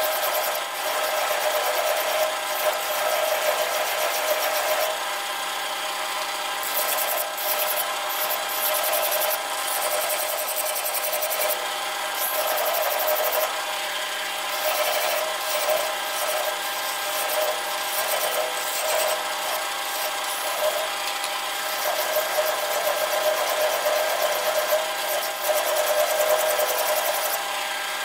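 Metal lathe running steadily with a hum, while a hand file rasps against the spinning steel rifle barrel to shape a wedding band. The rasping comes in uneven strokes.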